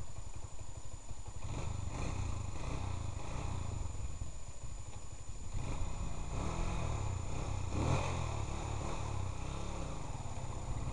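Motorcycle engine running while riding slowly, a steady low rumble whose pitch rises and falls a few times in the second half as the throttle is opened and closed.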